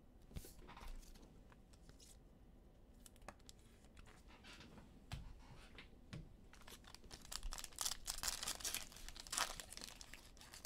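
Trading card pack wrappers being torn open and crinkled, with light clicks and rustling of cards being handled. The crinkling gets busier and louder about two-thirds of the way in.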